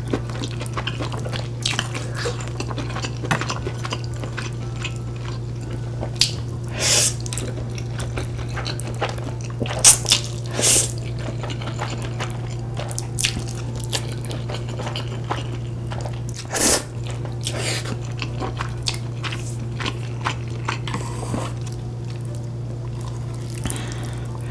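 Close-miked eating of spicy stir-fried ramen noodles: wet chewing and mouth clicks, with a few short loud slurps of noodles, over a steady low hum.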